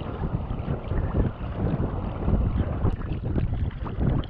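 Wind buffeting the microphone, with water splashing and sloshing around paddled sea kayaks on a choppy sea.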